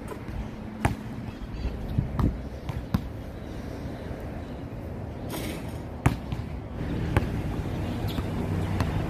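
Basketball bouncing on a hard outdoor court: about six sharp, unevenly spaced thuds. A steady low rumble rises near the end.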